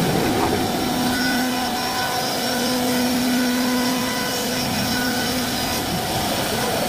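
CNC wood-carving router running steadily while cutting wood: a continuous machine noise with a steady hum in several tones.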